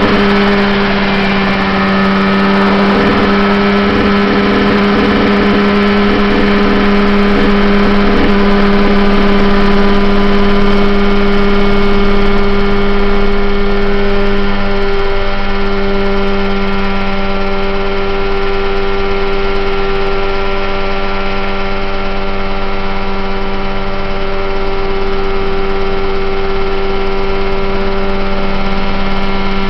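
Mosquito ultralight helicopter's engine and rotor running steadily, heard from on board: a constant, even drone with a brief wobble about halfway.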